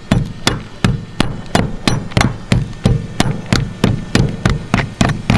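A steady, even series of sharp knocks, about three a second.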